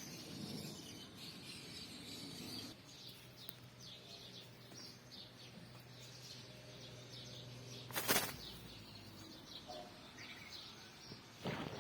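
Wild birds chirping repeatedly, with two brief loud rustling bursts, one about two-thirds of the way in and one near the end.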